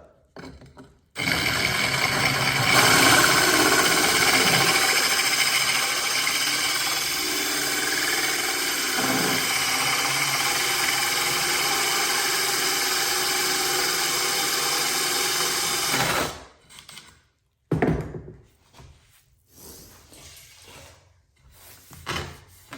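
Electric drill running a hole-saw bit through a wet 10 mm ceramic tile, a steady grinding whine for about fifteen seconds that grows louder a couple of seconds in. It cuts off suddenly, followed by a few light knocks and handling sounds.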